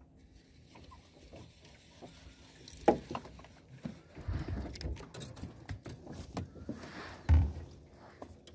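Quiet rustling and handling noise while a hook is baited and the line dropped over the side of a small aluminium boat, with a sharp knock about three seconds in and a dull, heavier thump near the end.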